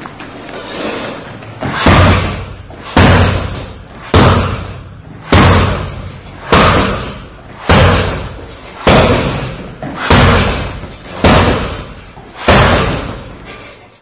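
Kicks landing on a tall standing kick bag, about ten heavy thuds, one roughly every second and a bit, each ringing out in the room before the next.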